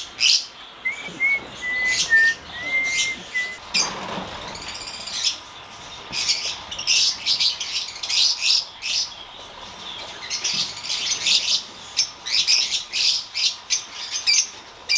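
A flock of small caged birds in an aviary chirping in quick, repeated high calls, with a few short, level whistled notes in the first few seconds.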